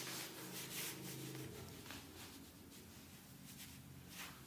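Faint rubbing and rustling of clothing as a person shifts position, over a low steady hum that changes about a second and a half in.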